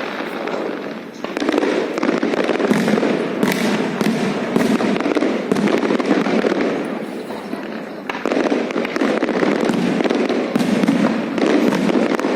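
Fireworks display going off in a dense, continuous barrage of bangs and crackling, with a brief lull about a second in.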